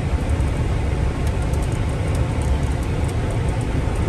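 Truck engine and road noise: a steady low rumble.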